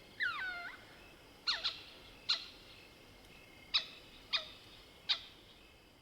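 Mohol's bushbaby (southern lesser galago) calling: one squeaking cry that falls in pitch shortly after the start, then six short, sharp squeaks, each dropping in pitch, at uneven gaps.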